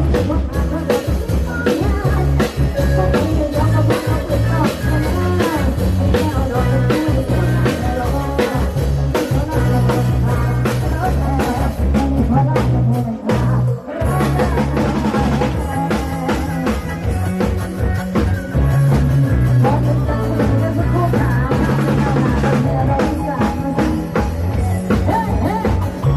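Loud amplified Isan rock music from a live rot hae sound-truck band, with drum kit and bass keeping a steady beat, heard through the camera's microphone; the band breaks off for a moment about 13 seconds in.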